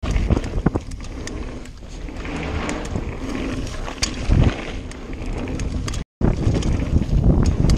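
Mountain bike ridden fast over a dirt trail: wind rushing over the bike-mounted camera's microphone, with tyres on the dirt and the bike rattling and clattering over bumps. The sound drops out for a moment about six seconds in.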